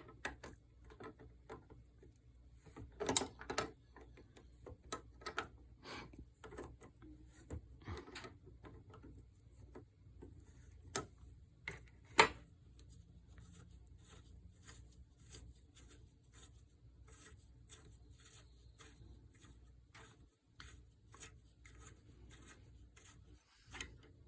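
Hand disassembly of a metal spray gun: irregular light clicks, taps and scrapes of small metal parts and tools being handled. There are sharper knocks about three seconds in and twice around the middle.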